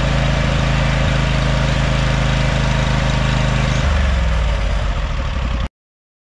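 Scag Tiger Cat zero-turn mower's engine running steadily; about four seconds in the engine speed drops and it runs on lower and rougher until the sound cuts off suddenly near the end.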